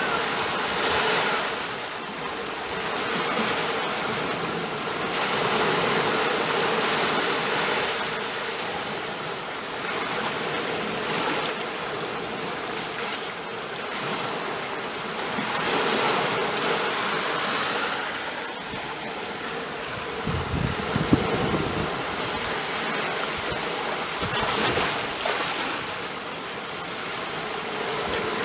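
Sea waves washing in and drawing back, the surf swelling and fading every few seconds. A brief low rumble comes about two-thirds of the way through.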